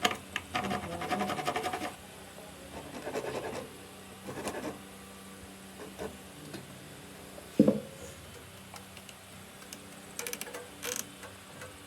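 Short, intermittent strokes of scraping and rubbing on wood, with one sharp knock about seven and a half seconds in and a few quick clicks near the end.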